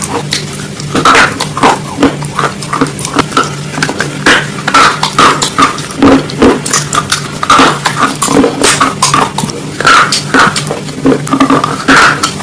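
Close-miked chewing of crunchy raw vegetable salad: loud, irregular crunches several times a second, over a steady low hum.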